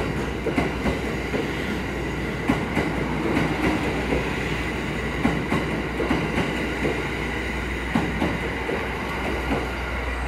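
E26-series Cassiopeia sleeper coaches rolling slowly past on departure, their wheels knocking over rail joints in irregular clacks above a steady rumble.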